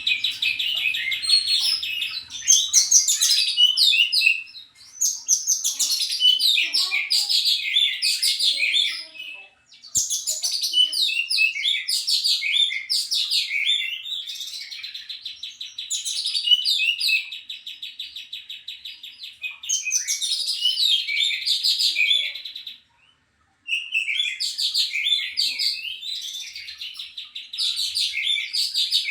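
Oriental magpie-robin (kacer) singing in full, persistent song: long phrases of rapid, varied whistles and chatter over a steady buzzing trill, broken by two short pauses.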